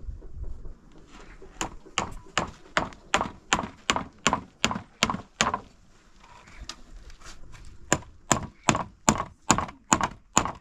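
Hammer driving a nail into a wooden plank: a run of sharp, even blows about three a second, a break of about two seconds, then a second run of blows.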